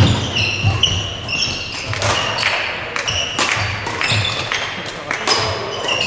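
Badminton doubles play on an indoor court: sharp racket strikes on the shuttlecock every second or two, with many short shoe squeaks on the court floor and the thud of footfalls.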